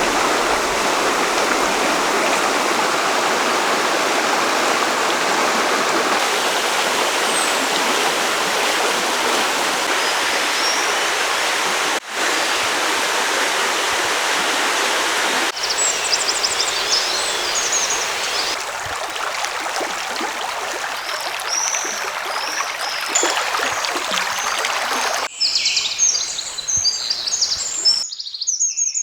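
River water rushing steadily. Partway through, the water grows quieter and small birds start chirping high above it. Near the end birdsong takes over, after an abrupt change in sound.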